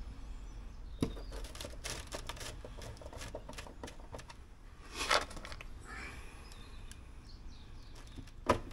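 Light handling noise as screws are set by hand into a motorhome's plastic rear bumper panel: a few scattered small clicks and one short scrape about five seconds in, over a low steady background rumble.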